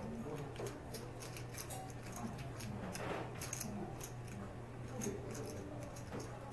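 Poker chips clicking together in quick, irregular clicks as they are handled at the table, over a steady low hum.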